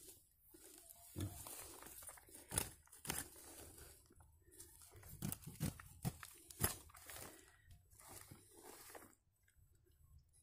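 A curved metal blade scraping and digging in dry, crumbly soil and dead grass around wild sweet potato tubers: irregular crunching and rustling with a few sharp knocks, dying away about a second before the end.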